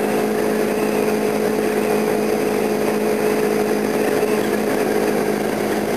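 Kawasaki Ninja 250's parallel-twin engine running at a steady cruising speed, heard from a helmet camera over a constant rush of wind and road noise.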